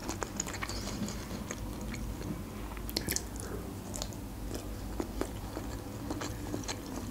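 Close-miked mouth sounds of someone eating: wet chewing with small irregular clicks, and a bite into a piece of boiled broccoli about four seconds in.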